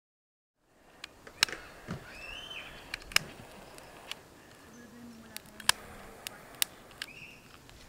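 Dry grass tinder and wood kindling crackling as a fire catches in a steel fire pit, with sharp irregular pops every second or so after a moment of silence. Birds chirp faintly a couple of times.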